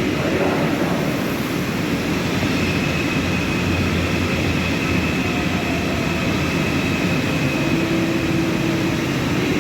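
Train moving through the station platform area: a steady rumble and rushing noise, with a faint high whine for a few seconds in the middle.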